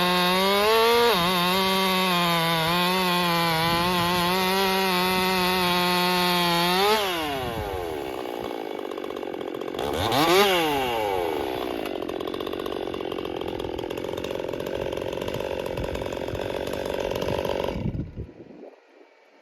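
Ported Stihl MS261 M-Tronic two-stroke chainsaw with a 25-inch bar and full-skip 3/8 chain, held at full throttle under load, its pitch pulled down and wavering as the long bar pulls hard in the cut. About seven seconds in the revs drop away; the throttle is blipped once, the saw idles, and the engine shuts off near the end.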